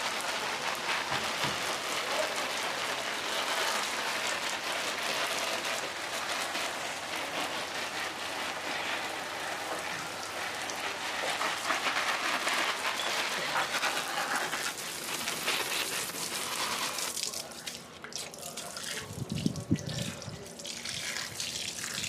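Water spraying over potted plants and splashing on their leaves, a steady hiss that dies away about three quarters of the way through. A few low thumps follow near the end.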